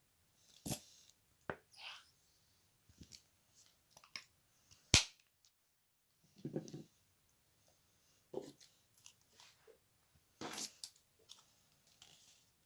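Slime being handled, with irregular sticky clicks, pops and squelches; one sharp snap about five seconds in is the loudest.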